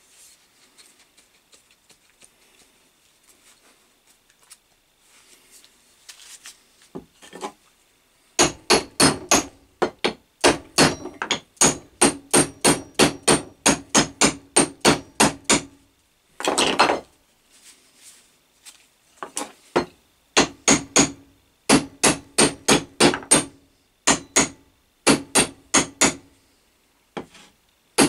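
Rapid hammer strikes, about four a second in runs of several seconds, seating a small axe head onto its new hickory handle. Each strike leaves a short ringing note. Before the strikes begin there are quiet handling knocks.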